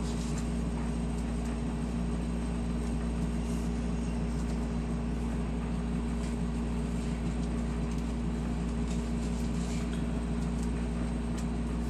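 A steady, unchanging low mechanical hum, like a motor or fan running, with a few faint ticks over it.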